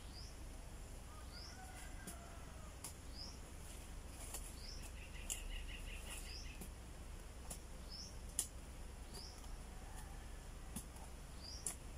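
Small birds chirping: a short rising chirp repeats about every one and a half seconds, with a brief trill in the middle and scattered sharp ticks, over a low steady rumble.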